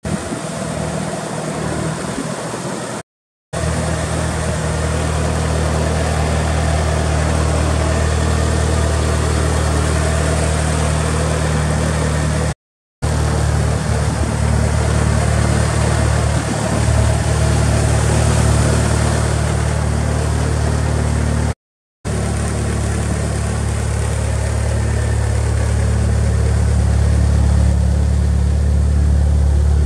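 Lancer Evolution VI Tommi Mäkinen Edition's turbocharged 4G63 inline-four, a TOMEI complete engine with a TOMEI turbo, idling steadily; the sound cuts out briefly three times.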